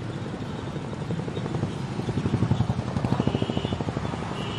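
A motor vehicle engine passing close by in street traffic, with a fast, even puttering that is loudest about two seconds in and then fades. A faint high steady tone starts near the end.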